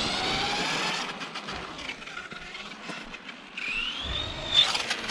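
Brushed electric motor of a Kyosho Mad Van RC van whining as it drives. About three and a half seconds in, the whine rises steeply in pitch as the van accelerates.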